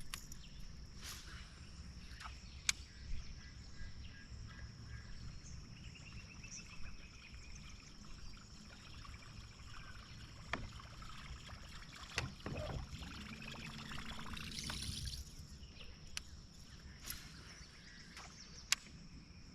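Faint water lapping and trickling against a fishing boat's hull, with a few sharp clicks and knocks and a thin, steady high tone.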